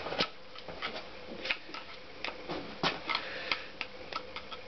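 Irregular light metallic clicks and taps as a screwdriver presses the piston rings of a Honda CX500 piston into the cylinder bore, the rings catching and slipping in as the cylinder is eased down.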